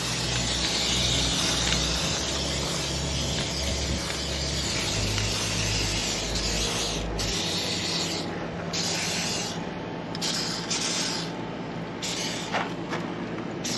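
Aerosol corrosion-protection spray hissing from a straw-nozzle can as it coats an outboard engine's parts. It runs as one long continuous spray, then several shorter bursts with brief pauses in the second half.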